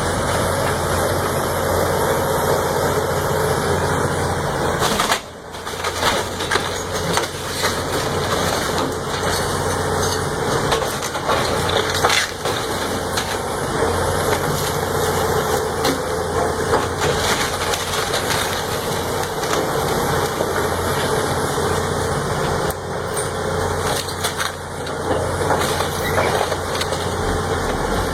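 Heavy forestry machine's engine running under load while wood is crushed and splintered, a continuous crackling racket over a steady engine hum, briefly broken about five seconds in.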